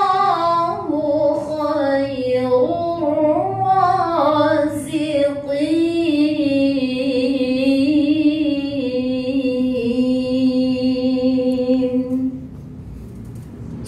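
A woman's voice reciting the Qur'an in a melodious chanted style, with ornamented turns and then a long, drawn-out held note. She pauses for breath near the end.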